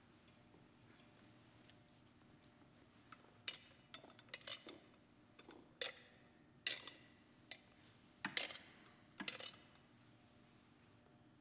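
Metal thurible (censer) clinking on its chains as it is swung to incense the Gospel book before the reading: about seven sharp clinks, roughly a second apart.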